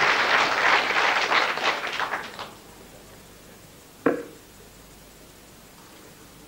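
Crowd applause for a 137 score dying away over the first two and a half seconds, then one sharp thud about four seconds in as a dart strikes a bristle dartboard.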